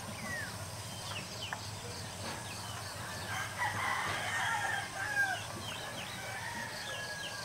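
A rooster crowing once, starting about three seconds in, over small birds chirping.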